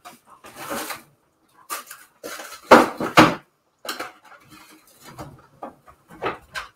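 Kitchen clatter: dishes, utensils or containers being handled and set down, a string of separate knocks and rattles with the loudest cluster about three seconds in.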